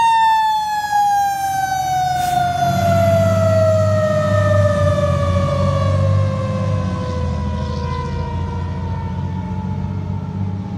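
A fire engine's Federal Q mechanical siren winding down, its single wail falling steadily and slowly in pitch. About two and a half seconds in, the truck's engine rumble rises beneath it as the engine pulls away.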